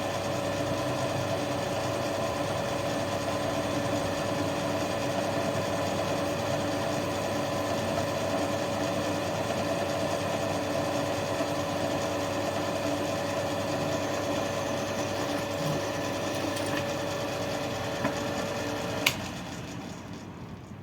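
An electric motor runs steadily with an even hum and whine. About 19 seconds in it is switched off with a sharp click, and the sound dies away as it runs down.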